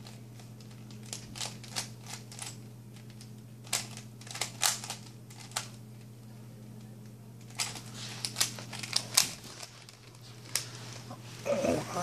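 Plastic 3x3 Rubik's Cube turned by hand: irregular clicks as the layers are twisted, with a pause of about two seconds in the middle.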